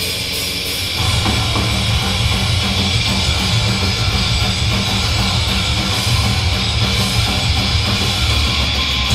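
Hardcore punk band playing live: distorted electric guitar and drum kit, with the full band coming in louder about a second in.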